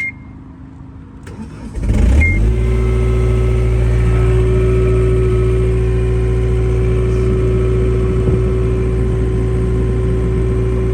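John Deere 317 diesel skid steer engine being cranked and starting about two seconds in, then idling steadily. A short high beep sounds at the start and again as the engine catches.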